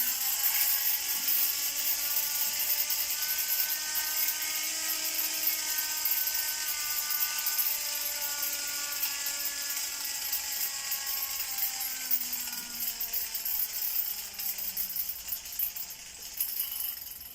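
The siren of a 1930s Louis Marx tinplate clockwork police car, driven by its wound-up clockwork motor, wailing with a steady whirring hiss. Its pitch climbs a little, then sinks slowly and fades toward the end as the clockwork runs down. The siren still works on this toy of that age.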